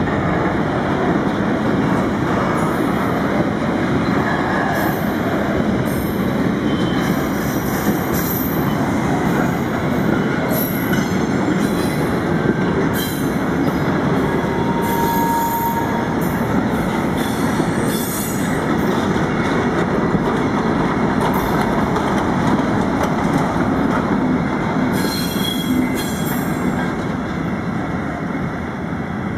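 Freight train of empty car-carrier wagons and covered goods wagons running past close by: a steady rumble of wheels on rail with repeated high-pitched wheel squeals. It eases slightly near the end as the covered wagons go by.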